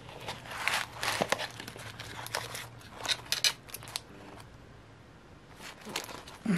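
Crinkling and rustling of the paper insert and cardboard packaging being pulled out of a Zombaes Forever plastic coffin blind box, with a few light clicks. It dies down after about four seconds.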